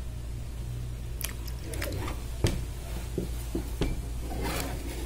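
Several sharp clicks and taps of handling, with a brief scuffling rustle near the end, over a steady low hum.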